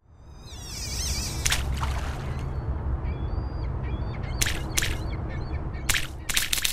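Outdoor ambience: a steady low rumble with birds calling over it. A wavering high call comes near the start, and several short harsh calls and chirps follow.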